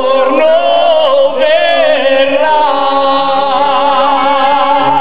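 Live band music with voices singing long, wavering held notes into microphones over a band.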